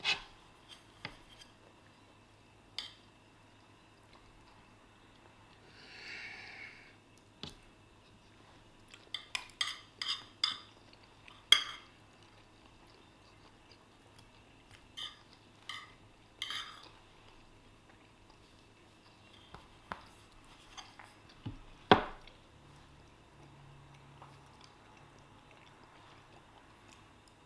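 Spoons and forks clinking and scraping on plates while eating, in scattered short clicks and taps, with a sharper knock about two-thirds of the way through.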